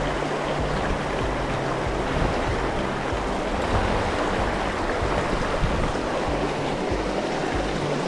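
Mountain creek rushing steadily, a loud even wash of water, with background music faintly underneath.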